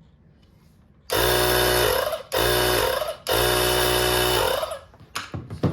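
Cordless 20 V air compressor's motor run in three short bursts of about a second each, winding down in pitch each time it is switched off, followed by a few clicks. The owner takes it as a sign that he has done something wrong.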